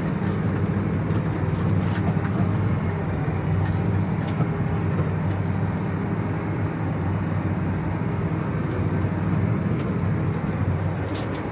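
Tractor engine running steadily under load while pulling a Hesston 2290 baler that is taking in hay, with a few faint clicks from the machinery.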